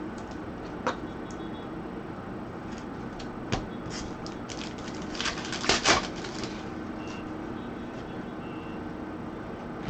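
Trading cards being handled and slid against one another: a few light clicks, then a short spell of rustling and flicking about four to six seconds in, over a steady room hum.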